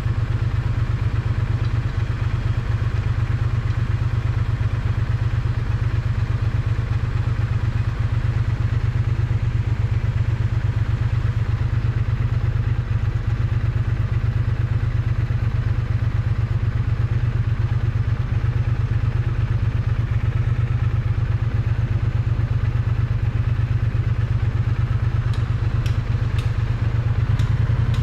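Triumph Bonneville T100 parallel-twin engine and exhaust running steadily, picked up close to the exhaust pipe, with an even low pulsing note and no revving. A few faint clicks come near the end.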